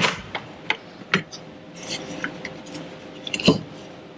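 Scattered clicks and light knocks of tools and metal wall-mount hardware being handled, the loudest about three and a half seconds in, over a faint steady hum.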